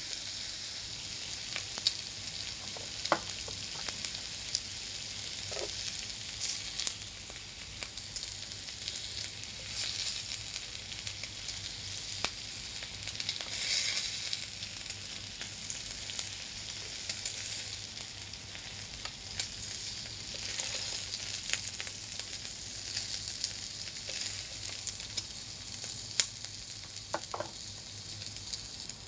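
Thin slices of pork sizzling on an electric grill plate: a steady frying hiss that swells louder about halfway through, with a few sharp clicks now and then.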